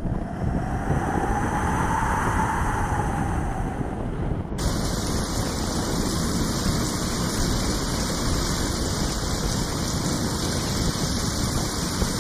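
Wind blowing across the microphone, a steady rushing rumble. About four and a half seconds in it turns abruptly brighter and hissier.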